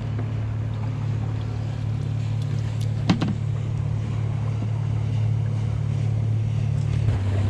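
A small motor hums steadily and low throughout, with a single short knock about three seconds in.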